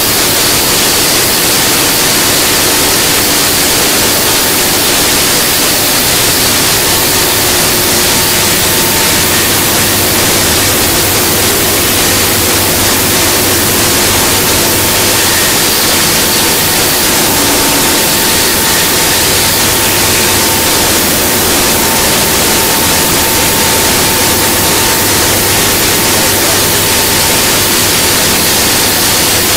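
CNC stone router's spindle milling a flat stone slab under a water-coolant spray: a loud, steady hissing grind with a faint steady whine.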